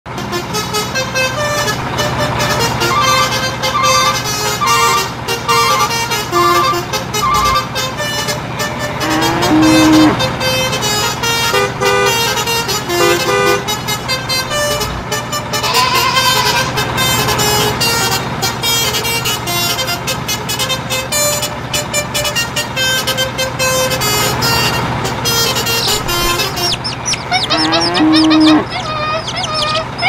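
Upbeat background music of short repeated notes over a steady low drone. A few brief, loud honk-like swoops stand out: about ten seconds in, about sixteen seconds in, and near the end.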